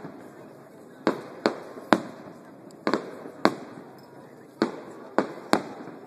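Aerial firework shells bursting: a string of about eight sharp bangs at irregular intervals, each trailing off briefly.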